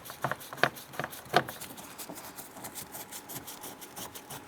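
Phillips head screws being driven by hand into a plastic interior door panel: a few sharp clicks in the first second and a half, then a run of faint rapid ticks.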